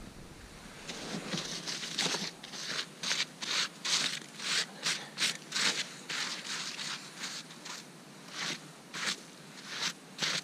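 Gloved hands scraping and scooping snow off a buried stone fire ring: a quick run of crunchy scrapes, two or three a second, a pause, then a few more near the end.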